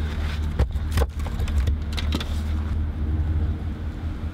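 An engine runs steadily with a low hum. Over it come a few sharp knocks as split firewood rounds are set down on the truck bed, about half a second, one second and two seconds in.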